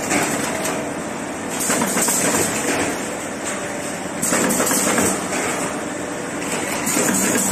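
Automatic cardboard partition assembling machine running: a steady mechanical clatter and hum that swells regularly, roughly every three seconds.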